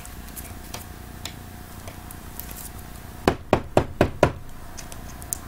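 Trading cards and a hard plastic card holder handled at a tabletop: five quick, sharp taps a little past the middle, over a faint steady hum.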